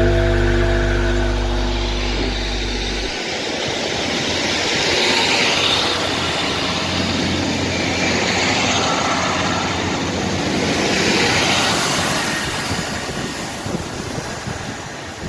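Train running through the station with a loud, steady engine and wheel roar that swells and eases several times. A song's last chord rings out over the first three seconds.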